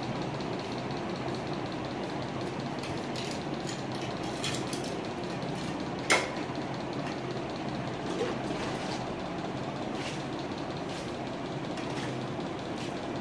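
A large 800x800 mm Kajaria floor tile being handled and fitted by hand. It knocks sharply once against the floor about six seconds in, with a few fainter taps, over a steady low hum.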